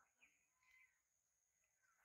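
Near silence with a few faint, short bird chirps.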